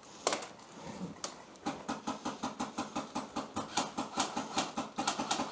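Airsoft rifle firing: two single sharp shots, then from about a second and a half in a steady string of rapid clacking shots, several a second.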